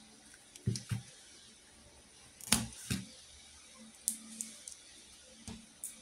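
Wire cutters clicking and snipping at the black rubber jacket of an RG6 coaxial cable as it is stripped back to the braided mesh: a string of short, sharp clicks at uneven intervals, the loudest pair about two and a half seconds in.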